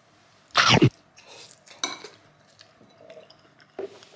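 Metal spoon scraping and clinking against a plate of rice while eating, with one loud short scrape about half a second in and a sharp clink near two seconds.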